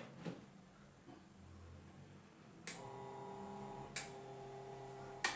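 Electric fan's push-button switches clicking several times; with the click about three seconds in, the fan motor starts a steady electrical hum, its broken coil wire freshly re-soldered.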